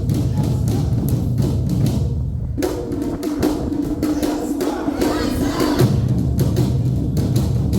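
Awa Odori festival band playing a fast, driving rhythm of drums and percussion. For about three seconds in the middle the heavy drumming drops away under a sustained melody, then comes back in.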